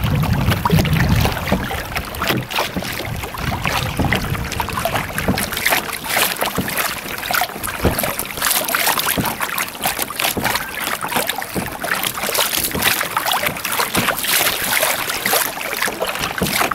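Small waves splashing and lapping against a moving kayak's hull, with irregular crackly splashes. Wind rumbles on the microphone, strongest in the first second or so.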